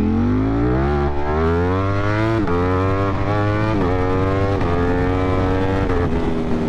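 Ducati Streetfighter V4's V4 engine under hard acceleration through the gears: the engine note climbs and drops back with each of about four quick upshifts. Near the end it settles into a steadier, slowly falling note.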